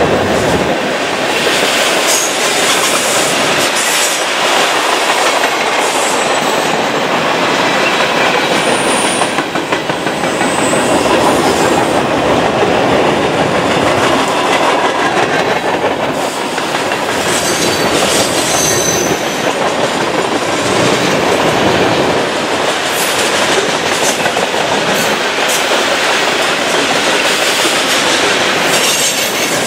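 Freight cars of a mixed freight train rolling past: a steady, loud clatter of steel wheels on the rails, with brief high-pitched wheel squeals a few times.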